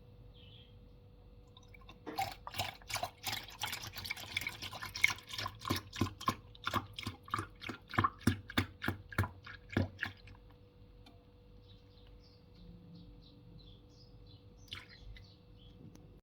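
Coffee machine brewing, with liquid spurting and dripping in a regular rhythm of about three pulses a second for some eight seconds, then stopping. A faint steady hum runs underneath.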